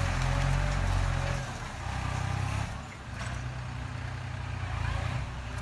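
New Holland TT3.50 tractor's diesel engine running steadily under load as it pulls a disc implement through the soil. The sound drops in level about a second and a half in and dips again briefly near three seconds.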